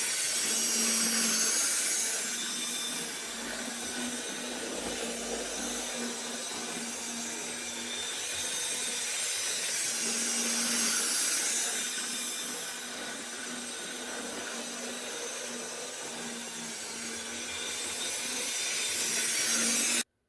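Tyco F unit model locomotive running on the track: its small electric motor and gears buzzing and the wheels rattling on the rails, with a steady hum underneath. The sound swells and fades slowly, loudest about a second in, again about eleven seconds in and near the end, and cuts off suddenly just before the end.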